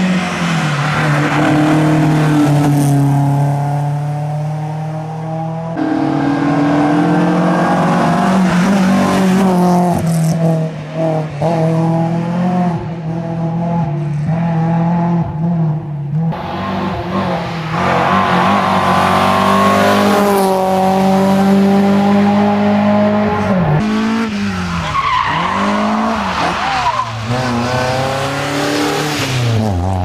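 BMW E30 318iS rally car's 1.8-litre four-cylinder engine driven hard, revs climbing and dropping with gear changes and lifts for corners, over several separate passes that change abruptly from one to the next.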